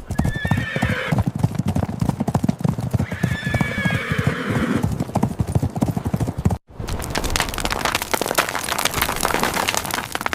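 Horse hooves clip-clopping quickly, with two whinnies in the first half. The hoofbeats stop for an instant about two-thirds of the way through, then carry on.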